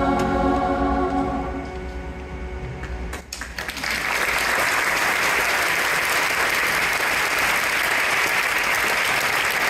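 A choir's last held chord fades away, and about three seconds in the audience breaks into applause, steady clapping that carries on to the end.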